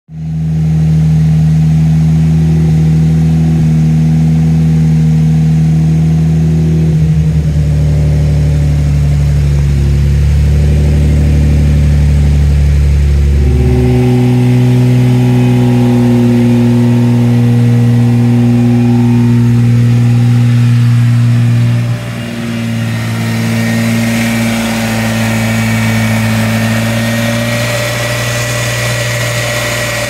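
BMW N54 3.0-litre twin-turbo inline-six running steadily, its note shifting a few times. A thin high whine joins in during the second half. The engine has a failed turbo oil seal.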